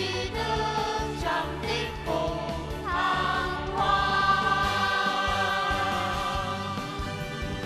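A choir singing a song with instrumental backing, settling on a long held chord about four seconds in.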